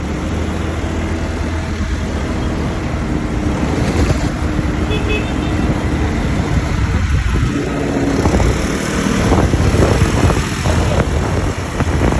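A motor vehicle under way: a steady low engine drone with wind rushing over the microphone, growing a little louder about two-thirds of the way through.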